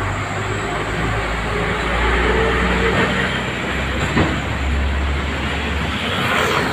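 Heavy vehicle rumbling past amid steady street traffic, with a single sharp knock about four seconds in.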